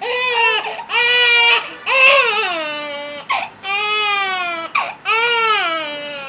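A 7-week-old baby crying hard in about five long wails, with short catches of breath between, each wail sliding down in pitch at its end. She is crying in distress while her earlobe is pierced with a piercing gun.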